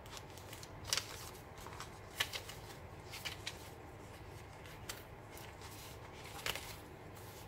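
Pages of a thick handmade paper-and-fabric journal being turned and handled: soft paper rustling with a few sharper flicks, the sharpest about a second in, just past two seconds, and about six and a half seconds in.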